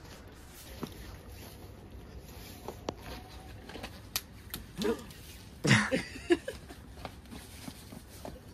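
Platform heels clicking now and then on wet pavement, with two short cries a little past the middle, the second the loudest sound.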